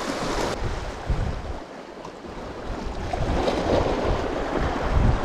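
Sea surf washing against a rocky shore, with wind gusting on the microphone.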